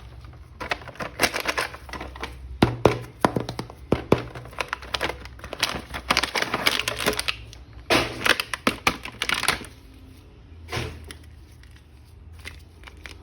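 Hands unboxing and handling a plastic action figure: a rapid run of clicks, taps and rustles that thins out to a few light taps near the end.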